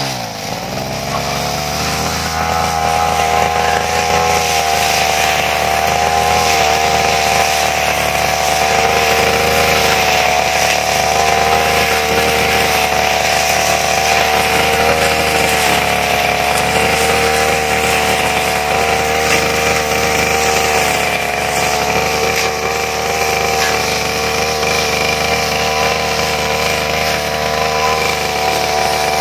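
Brush cutter engine running at high revs while cutting grass. The revs drop sharply at the very start and climb back within about a second, then hold steady with slight wavering under the cutting load.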